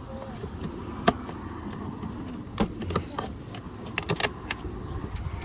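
Metal hardware clinking as battery cable lugs and terminal parts are handled, a few sharp clicks spread through, over a low steady background rumble.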